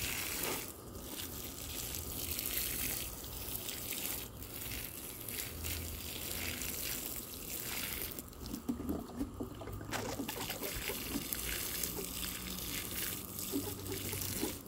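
Water sprinkling from a watering can's rose onto soil in fabric grow bags, a steady patter of falling drops. It breaks off for about two seconds around eight seconds in, then starts again.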